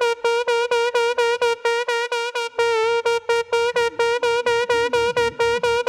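Minimal techno: a single repeated synth note pulsing about five times a second. A low bass line comes in underneath about two and a half seconds in.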